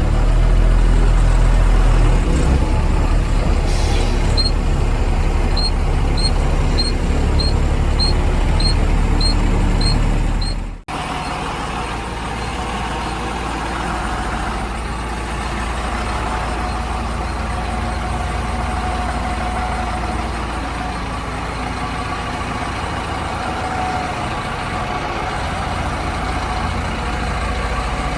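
Heavy diesel engines of a JCB backhoe loader and tipper truck running, with a reversing alarm beeping evenly, a little under twice a second, for several seconds. The sound then cuts off suddenly and picks up again as a steadier, somewhat quieter engine running.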